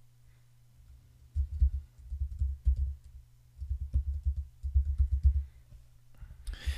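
Typing on a computer keyboard, in several quick runs of keystrokes heard as dull thumps with light clicks, starting about a second and a half in.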